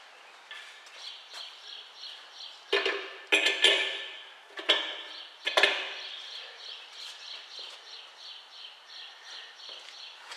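Metal air cleaner housing being handled and set onto the carburetor of a 1967 Chevrolet Camaro's engine: a handful of sharp metallic clanks and rattles come between about three and six seconds in. A rapid, evenly repeating high chirping goes on underneath throughout.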